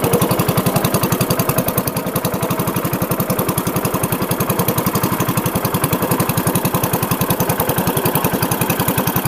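Small wooden motorboat's engine running steadily under way: a fast, even putter of about eight beats a second.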